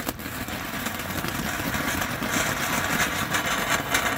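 A lit consumer ground firework burning with a harsh hiss and crackle, swelling somewhat louder as it goes.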